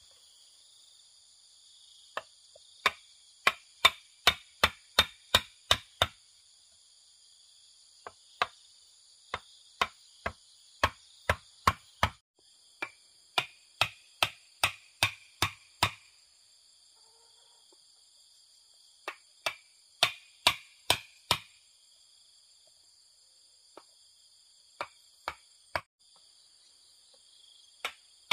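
Repeated sharp chopping strikes, about two to three a second, in runs of several with pauses of a few seconds between them. Steady high-pitched insect trilling continues underneath.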